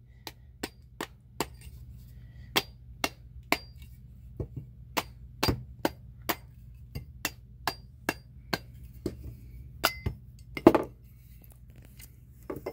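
Steel half-hatchet head and wooden handle being knocked against a workbench, a steady run of sharp knocks about two a second, each with a light metallic ring, to loosen the head off the handle. One heavier knock comes near the end.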